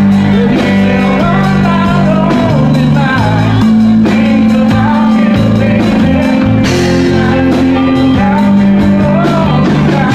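Live band playing a song: a singer over guitar and bass, with a steady drum beat.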